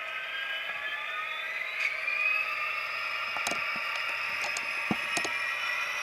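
HO-scale SD70M model locomotive's Tsunami sound decoder playing its diesel engine sound through the small onboard speaker, the engine rising in pitch over the first couple of seconds and then running steadily. A few light clicks come late on.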